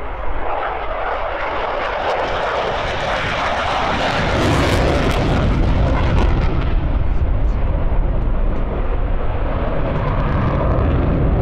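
F-16 fighter jet flying past with its jet engine running hard. The noise is a rushing hiss that swells to a peak about five seconds in, then gives way to a deep rumble that builds and holds.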